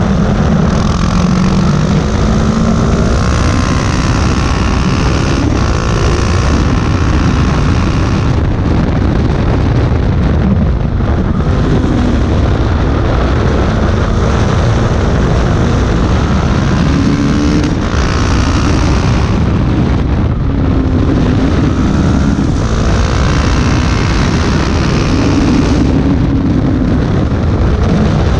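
A 2018 KTM 690 Duke's single-cylinder engine running on the road, its pitch rising and falling repeatedly as the throttle opens and closes, with heavy wind rush over it.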